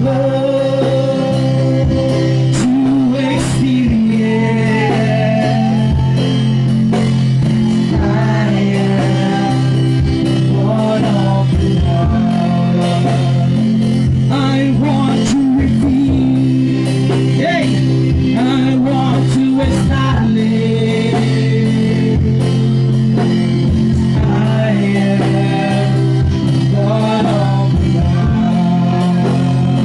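Live worship music: a band with guitar and a steady accompaniment, with singing over it.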